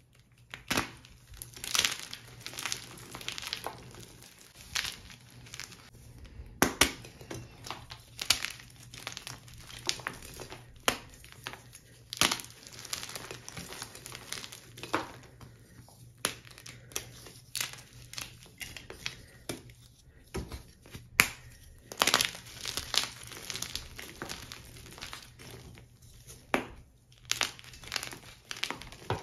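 Blocks of plain gym chalk being crushed and crumbled by hand over loose chalk powder: irregular dry crunches and crumbling, with a few sharper, louder cracks now and then.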